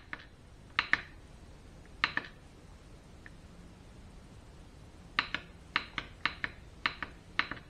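Plastic push-button of a digital wall thermostat clicking as it is pressed repeatedly to lower the cooling setpoint: three spaced clicks, then a quick run of about nine near the end.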